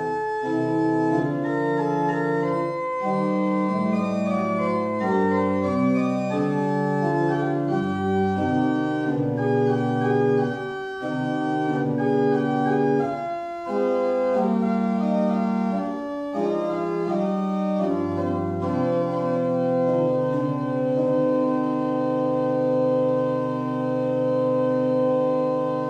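Church organ playing slow sustained chords that change every second or so, closing on one long held chord over the last several seconds.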